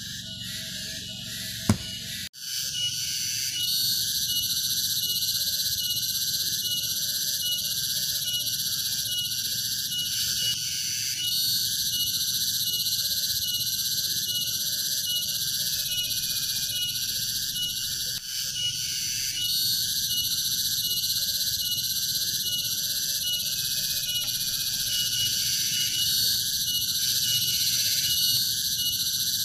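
A steady, dense chorus of high-pitched insects, with a lower call pulsing regularly beneath it. A sharp click sounds about two seconds in, just before the chorus sets in.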